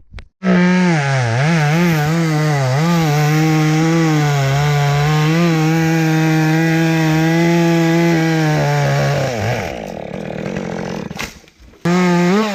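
Chainsaw running at full throttle and cutting wood. Its pitch dips and wavers as the chain loads up in the cut for the first few seconds, then holds steady. About nine seconds in the throttle is let off and the engine winds down, with one short rev near the end.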